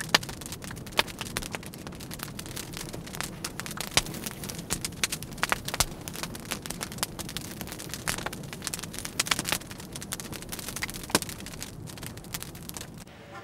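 Dense, irregular crackling: sharp pops and clicks over a low steady rumble.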